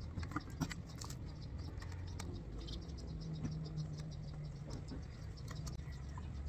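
Faint small clicks and light metal handling as a nut is threaded by hand onto the bolt that holds a metal mounting brace to a solar panel's aluminium frame.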